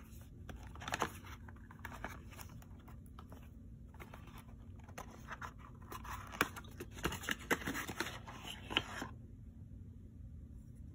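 Paperboard carton being handled and opened: rustling and scraping of the cardboard flaps with sharp crinkles and clicks, busiest in the last few seconds, as the glass bottle of suede cleaner is drawn out. The handling stops about two seconds before the end.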